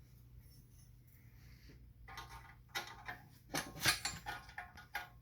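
Hand tools and small metal parts clinking and clattering irregularly while work is done on a mini bike's engine. It starts about two seconds in after a quiet stretch, over a low steady hum.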